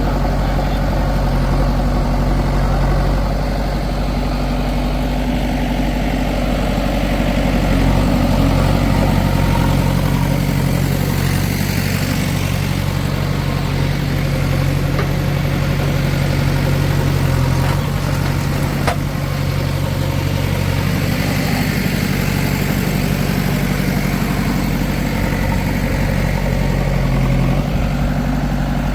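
Diesel engine of a backhoe loader or farm tractor running steadily at low speed, with a brief click about two-thirds of the way through.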